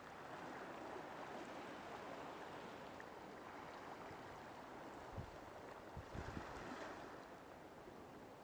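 Faint steady rushing noise, with a few short low thumps between about five and seven seconds in.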